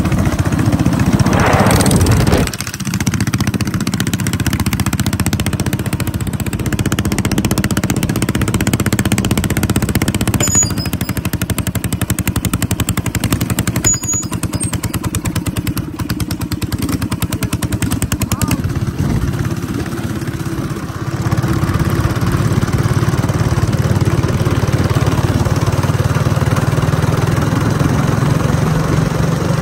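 Small mini bike engines running close by as the bikes ride along the street, with a fast, even pulse to the sound. They are louder and brighter in the first two seconds, drop back, and then run fuller and steadier from about twenty seconds in.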